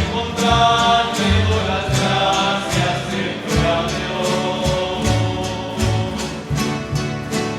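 A rondalla performing: several acoustic guitars strummed in a steady rhythm over a plucked bass line, with voices singing in harmony.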